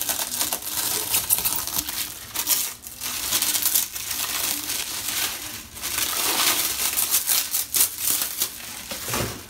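Plastic cling wrap crinkling and crackling as it is pulled and crumpled off a bottle by hand, with a couple of short pauses.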